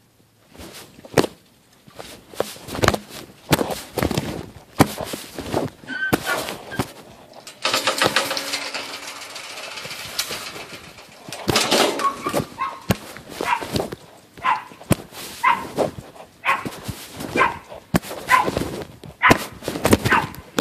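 Dogs yipping and whining in short high yelps, with many sharp knocks and clatters throughout and a steady hiss lasting a few seconds in the middle.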